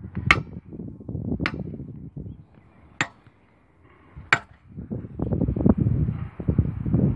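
Sharp metallic hammer strikes on railway track fittings, four in all about a second and a half apart: a keyman's hammer tapping the rail fastenings during his track inspection. Wind rumbles on the microphone between the strikes.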